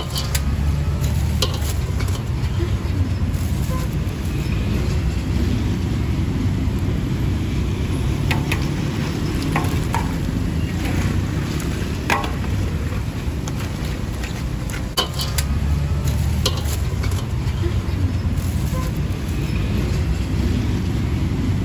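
Battered banana pieces deep-frying in a large wok of hot oil: a steady sizzle over a continuous low rumble, with scattered light metallic clicks of a wire skimmer against the wok.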